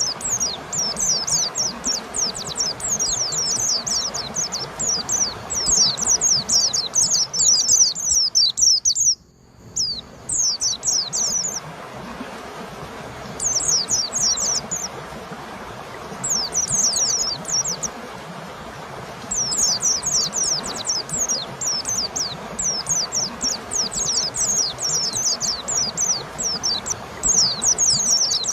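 White-eye (pleci) song: long runs of rapid, high, falling notes, broken by a few short pauses and a brief dropout about nine seconds in, over a steady background hiss.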